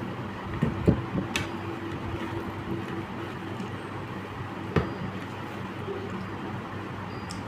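Eating sounds, with mouth noises and a few sharp clicks of food or utensils about a second in and again near five seconds in, over a steady background hum.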